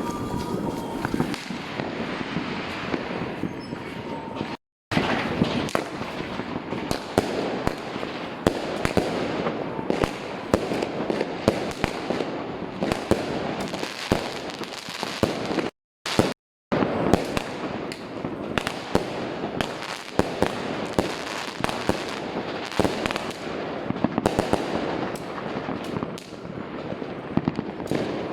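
Dense, continuous crackling and banging of many fireworks and firecrackers going off at once, near and far, a city-wide New Year's midnight barrage. The sound cuts out completely for a moment twice, about five seconds in and again about sixteen seconds in.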